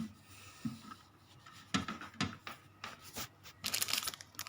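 Light knocks and scraping as a hard disk and its mounting screws are handled in a DVR's case: a few separate taps, then a quick run of small clicks and rustles near the end.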